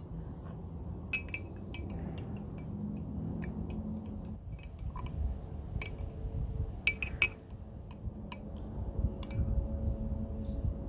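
Light clinks and taps of kitchenware, such as a cup, lid and spoon, being handled at irregular moments over a low steady rumble.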